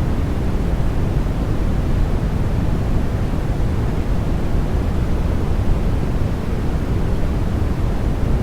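Continuous white noise sleep sound: a steady, unchanging hiss, heaviest in the low end and thinning toward the highs.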